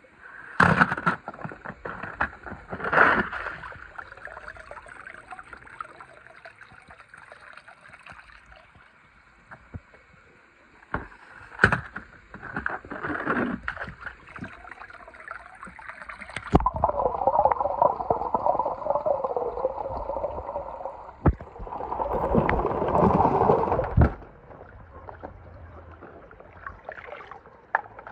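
Water splashing and sloshing as plastic toy trains go into a swimming pool, with a few sharp knocks early on and a longer stretch of splashing in the second half.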